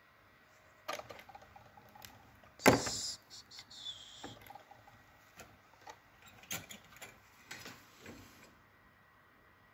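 Hands handling thin hookup wires and a tiny circuit board on a wooden desk: scattered light clicks and rustles, with one louder knock about two and a half seconds in.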